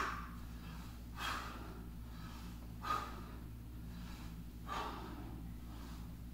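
A man breathing hard while doing bodyweight squats, with a short sharp breath on each rep, about every one and a half seconds.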